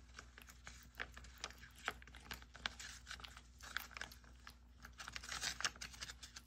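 A cat eating wet food from a ceramic bowl: quick, moist chewing clicks, several a second, coming thickest about five seconds in.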